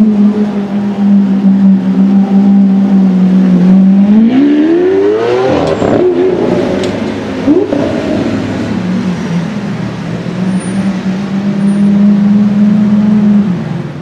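Lamborghini Aventador V12 engines driving at low, steady revs with a loud, even drone. About four seconds in, one accelerates hard with a rising engine pitch, and near the end the steady drone returns.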